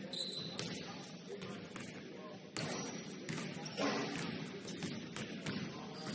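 Basketball gym ambience: indistinct voices in a large hall, with a basketball bouncing on the court in scattered sharp knocks.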